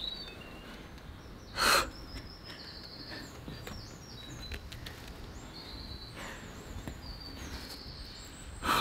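Small birds chirping throughout, with two short, loud grunts of effort from a boulderer pulling through hard moves, about two seconds in and again near the end.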